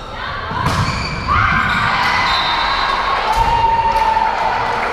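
Spectators cheering in a gym, with long drawn-out shouts that echo in the hall, and a sharp impact, a ball or a foot on the court, about two-thirds of a second in.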